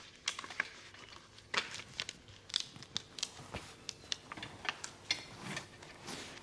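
Irregular rustling and crinkling with scattered small clicks, the sound of things being handled and moved about at close range.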